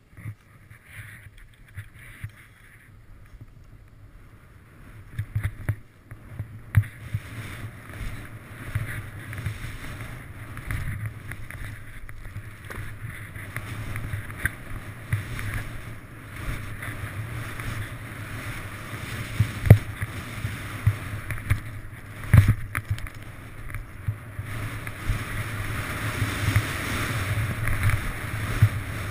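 Skis swishing and hissing through deep powder snow, with wind buffeting the microphone. The noise builds about five seconds in as the run picks up speed, with a few sharp knocks as skis and poles hit bumps.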